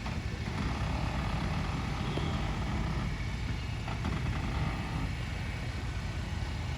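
Four-wheel-drive vehicle's engine running with a steady low rumble as it crawls slowly over a rough, rocky track.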